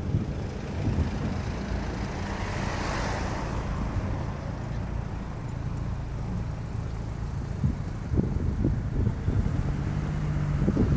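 Road traffic: a car drives by, its tyre noise swelling and fading about two to three seconds in, over a steady low rumble of traffic. Wind buffets the microphone near the end.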